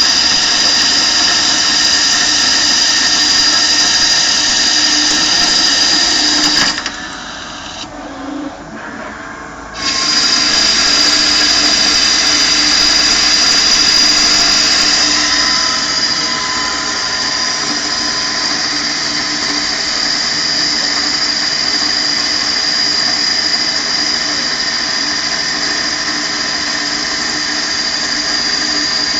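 Okuma Multus CNC lathe turning a 200 mm workpiece at a 5 mm depth of cut: a steady, loud machining whine made of many tones, with a high shrill line on top. About seven seconds in it drops away for about three seconds, then comes back at full level.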